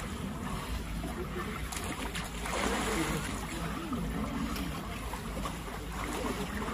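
Water sloshing and lapping in a small ice-hole bathing pool as a bather wades through it, over a steady low rumble, with voices of onlookers in the background.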